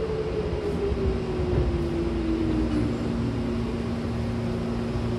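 Electric commuter train's motor whine falling steadily in pitch as the train slows, then holding a steady low hum from about three seconds in, over the rumble of the running gear inside the carriage.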